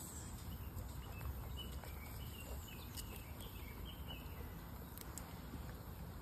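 A run of faint, short, high chirping animal calls, about a dozen in a few seconds, over steady low outdoor background noise.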